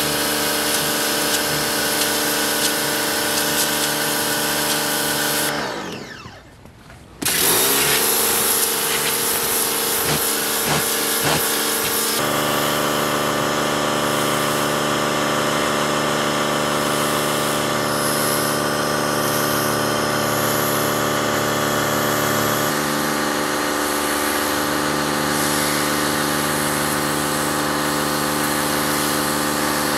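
Pressure washer running, its motor and pump whining steadily under the hiss of the water jet striking wooden steps. About five and a half seconds in the trigger is let go and the motor winds down to a stop. It starts again abruptly a second and a half later, and the spray hiss brightens about twelve seconds in.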